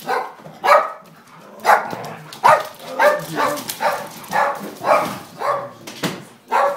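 Dog coughing over and over in short, harsh bursts, about ten of them at one to two a second.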